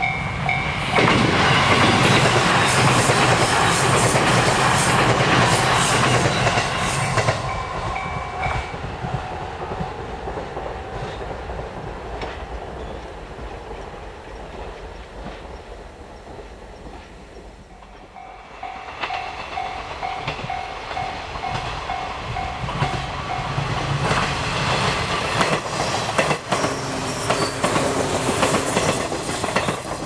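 Japanese level-crossing alarm ringing its repeating electronic ding-ding while an electric train runs loudly over the crossing in the first several seconds, wheels clattering over the rail joints. The train noise fades and the alarm stops, then the alarm rings again a little past halfway and the train noise builds once more near the end.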